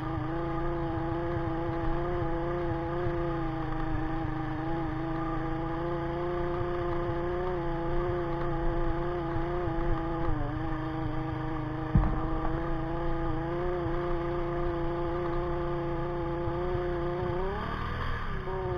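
Sigma 250cc motorcycle engine running at a steady speed while riding over a gravel track, with low road rumble beneath it. The revs dip briefly partway through, a single sharp knock comes about twelve seconds in, and near the end the revs rise and then fall again.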